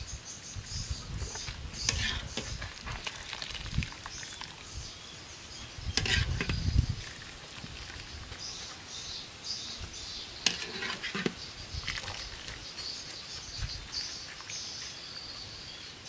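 Wire-mesh strainer scooping spaghetti out of a wok of hot water and tipping it into a stainless-steel bowl: water splashing and dripping, with occasional sharp metal knocks and scrapes, loudest about six seconds in. Birds chirp throughout.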